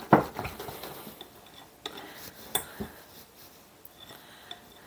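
Metal wire whisk beating egg yolks and cornstarch in a glass bowl, rattling and clinking against the glass. The loudest clink comes just after the start, with another sharp one about two and a half seconds in.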